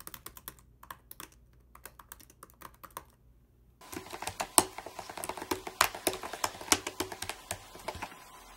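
Typing on a 2016 MacBook Pro's butterfly-switch keyboard. For the first four seconds it is the replacement keyboard, with soft, sparse key clicks. Then comes the original keyboard, whose keys had been sticking: a faster, louder clatter of clicks.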